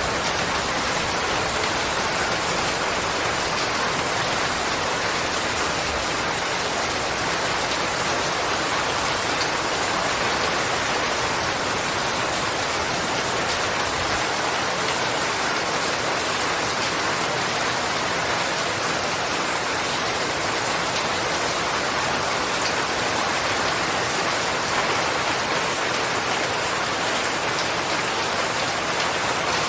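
Steady rain falling and pattering on surfaces, an even, unbroken hiss of many drops.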